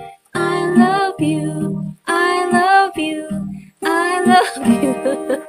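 A woman singing to her own acoustic guitar, strummed underneath. Three long sung phrases with short breaks between them, thinning out near the end.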